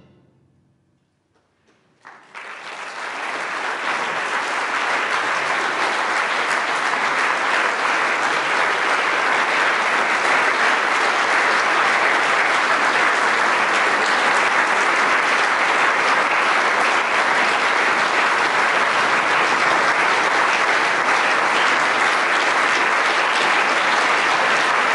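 Concert audience applauding: after about two seconds of near silence, clapping breaks out suddenly and swells within a couple of seconds into steady applause.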